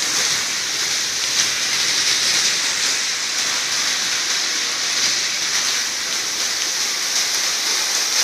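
Heavy rain falling on a flooded street, a steady hiss. Near the end a pickup truck's tyres swish through the standing water close by.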